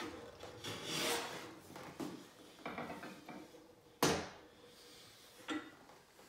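Wooden No. 4 skew hollow moulding plane taking a hissing shaving stroke across the end grain of a hardwood drawer front about a second in, followed by fainter rubbing scrapes. A sharp wooden knock comes about four seconds in, with a smaller one near the end.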